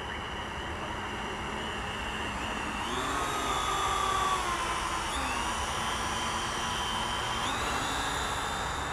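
Quadcopter drone's electric motors and propellers whining overhead, the pitch stepping and gliding up and down as it manoeuvres. It grows louder toward the middle, loudest at about four seconds in, then eases off slightly.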